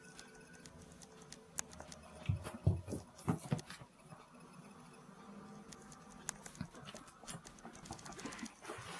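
Cats playing with a ball: light paw patter and clicks on the floor, with a cluster of heavier thumps about two to three and a half seconds in.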